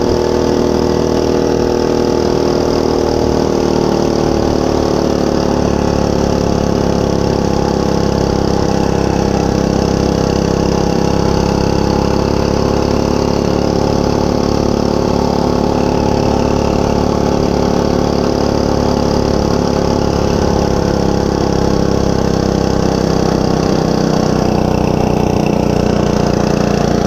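Monster Moto 105 mini bike's 105cc single-cylinder four-stroke engine running steadily, its pitch wavering only slightly, with the choke left halfway on.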